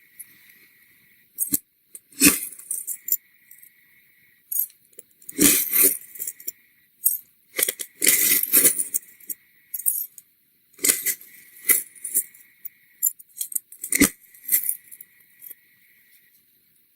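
Shun kitchen knife cutting through kinetic sand: a series of crisp crunches and scrapes at irregular intervals, some single and some in quick clusters, with a faint steady high tone in the quiet stretches between them.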